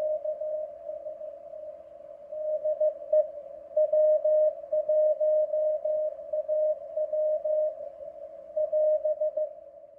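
Morse code practice tone keyed at 15 words per minute, a single mid-pitched note in short dots and longer dashes with uneven gaps between characters, over a faint hiss. The keying stops near the end.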